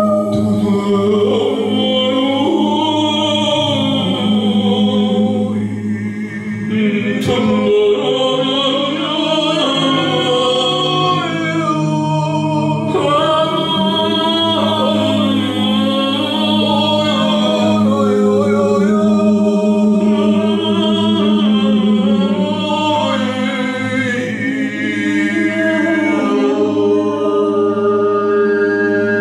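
Improvised vocal music: a man's and a woman's voices weave shifting melodic lines over a steady low held drone, with no instruments audible. A single sharp click sounds about seven seconds in.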